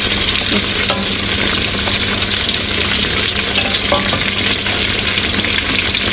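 Tofu deep-frying in a wok of hot oil: a steady sizzle, with a metal spatula tapping the wok lightly about a second in and again around four seconds.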